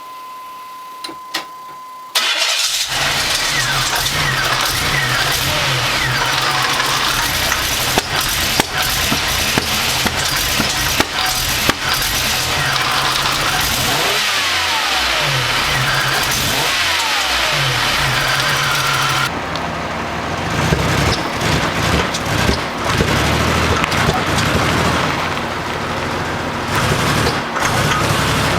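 Buick Century's 3.3-litre V6 starting after a steady beep of about two seconds, then running with sharp pops and several throttle blips that drop and pick up revs. The pops point to the misfire and intake backfire the owner is chasing.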